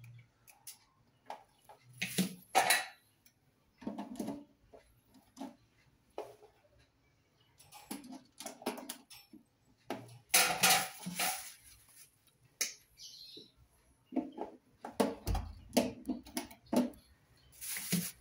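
Irregular clicks, knocks and light metallic clinks from hands working wires and breakers in a household circuit breaker panel, with louder clusters about two seconds in, around ten seconds and around fifteen seconds.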